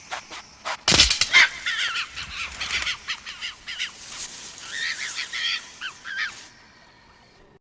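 Compsognathus creature sound effects: a sharp crack about a second in, then a rapid jumble of short, high, bird-like chirps and squeaks that dies away a second before the end.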